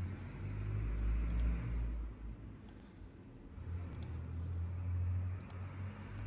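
A few scattered computer mouse clicks over a low, wavering background rumble.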